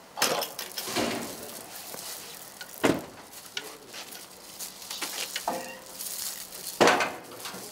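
Electric wheelchair being lifted down from a truck bed and pushed over asphalt: a few sharp knocks and clatters, the loudest just after the start, about three seconds in and near the end, over a crackly rustle.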